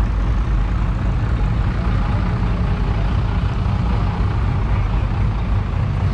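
Steady low rumble of classic car engines idling and moving slowly past.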